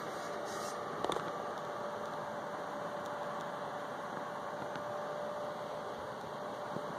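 Steady low hum and hiss of room tone, with one faint steady tone held through it and a single light click about a second in.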